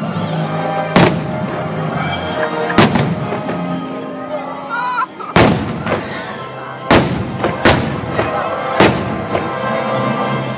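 Fireworks shells bursting in sharp, loud bangs, about six in ten seconds, over continuous music from the fireworks show.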